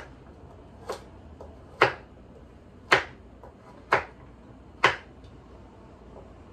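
Kitchen knife chopping through carrots on a wooden cutting board: six sharp chops about a second apart, stopping about five seconds in.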